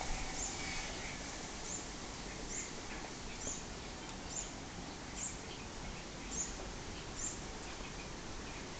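Short, very high chirps repeated steadily a little faster than once a second, a small animal's call, over faint background hiss.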